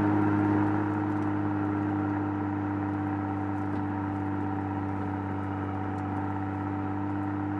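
BMW M2's turbocharged in-line six-cylinder engine and exhaust cruising at a steady engine speed, giving an even drone that holds one pitch throughout, over tyre and wind noise.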